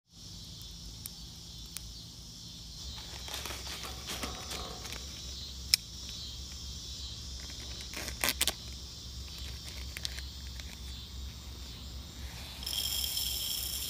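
Outdoor insect chorus, a steady high buzzing over a low steady hum. Scattered sharp clicks and crinkles of a plastic bag of popcorn kernels being handled and cut open with a knife, the loudest click about two-fifths of the way through and a quick cluster a little past the middle.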